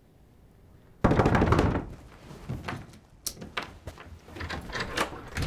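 A sudden loud burst of banging on a door about a second in, followed by lighter scattered knocks and rustling.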